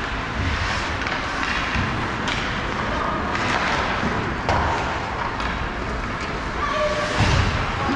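Ice hockey game play in an arena: sharp stick-and-puck clacks and knocks over a steady hiss of skating and distant voices, with a heavier thud near the end.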